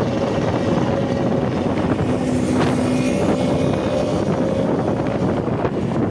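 Putri Luragung bus's engine running steadily through its 'ngorok' (snoring) exhaust, a loud even drone with a few faint held tones.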